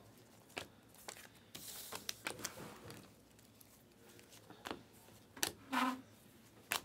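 Panini Prizm chrome trading cards being slid off a stack and flipped through one at a time in the hand: soft scattered flicks and sliding swishes, with a longer rustle about two seconds in.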